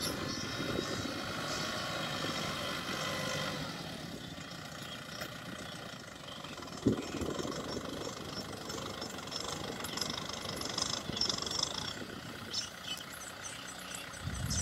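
Kubota M6040SU tractor's diesel engine running steadily as it pulls a disc plough through the field, with a single sharp knock about seven seconds in.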